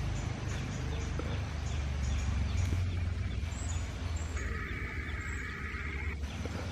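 Jungle ambience: a steady low rumble of wind or handling on the microphone, with faint repeated animal calls, and a steady buzzing call lasting about two seconds in the second half.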